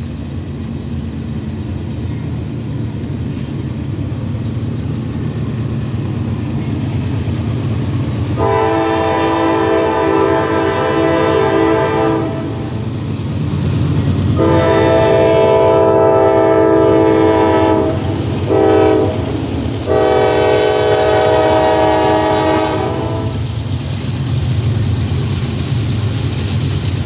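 Norfolk Southern #4218 locomotive rumbling along the track and sounding its multi-note horn in the long-long-short-long grade-crossing signal. There are three long blasts of about four seconds each, and a brief one just before the last long blast.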